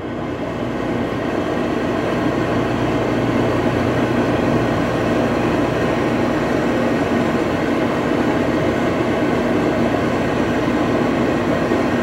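Microwave oven running: a steady low hum with the whir of its fan, heating the Peeps inside.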